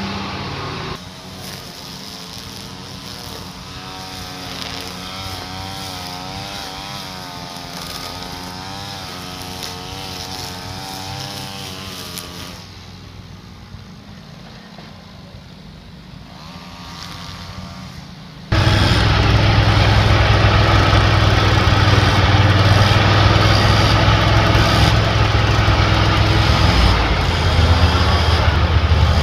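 A small engine runs at a distance with its pitch wavering, then about two-thirds of the way in the sound cuts suddenly to a Redmax gas backpack leaf blower running loud and close, its pitch climbing near the end.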